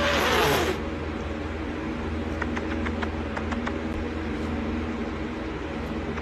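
A domestic cat hisses once, sharply, right at the start: an angry warning hiss lasting under a second. After it come only a steady low hum and a few faint clicks.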